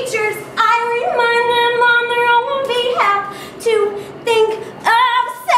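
A woman singing solo and unaccompanied, holding long high notes in short phrases with brief breaths between them.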